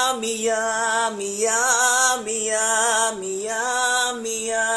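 A solo voice singing long held notes with a slight vibrato, stepping up and down in pitch from one note to the next.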